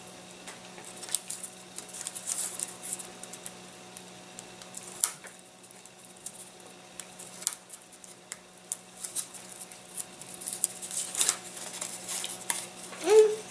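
Light, scattered clicks and scratches of a hobby knife cutting the tabs that hold a laser-cut wooden part in its sheet. A short rising squeak comes near the end.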